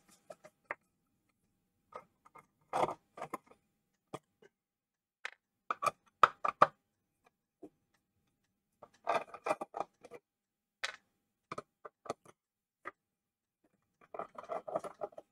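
Hand screwdriver working the screws out of a Volvo XC60 airbag control unit's metal housing: scattered small clicks and scrapes of the tool, the screws and the casing. There is a short cluster of them about nine seconds in and a denser metallic clatter near the end.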